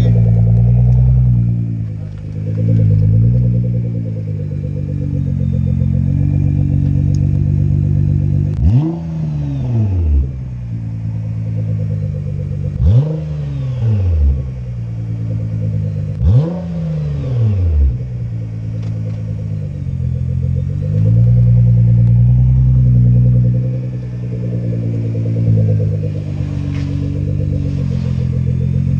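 Nissan GT-R R35's twin-turbo V6 running through a new aftermarket exhaust: a steady drone, with three sharp revs in the middle, each climbing quickly and falling back over a second or so.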